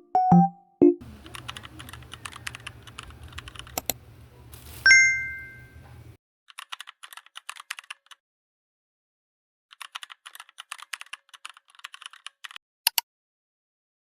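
Keyboard typing in quick bursts of light clicks, with pauses between them. A bell-like chime rings once about five seconds in and fades away.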